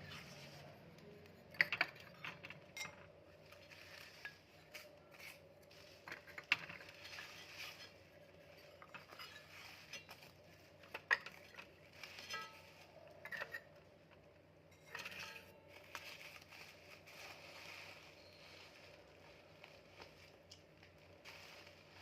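Items being handled during unpacking: irregular sharp clicks, taps and short bursts of rustling, over a faint steady hum.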